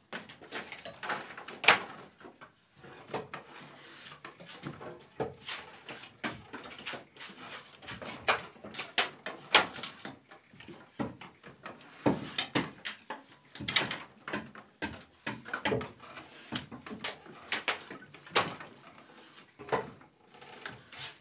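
Draw knives shaving wooden roof shingles: irregular scraping strokes of steel blade across wood, one after another at uneven gaps, a few much louder than the rest.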